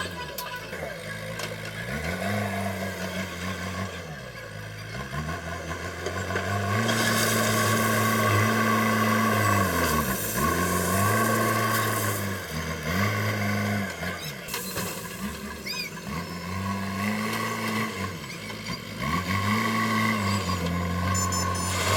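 JCB backhoe loader's diesel engine revving up and dropping back over and over as the machine works, its pitch rising and falling every couple of seconds.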